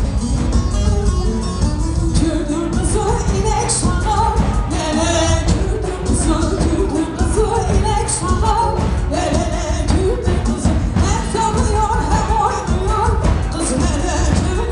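Live band playing Turkish halay dance music with a singer, over a heavy, steady beat.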